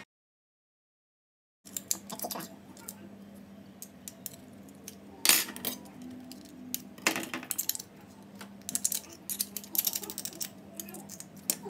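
Irregular clicks and clinks of clam shells and a metal utensil knocking and scraping over a bowl as clams are opened and picked apart by hand, starting after about a second and a half of silence, with a quick run of clicks near the end.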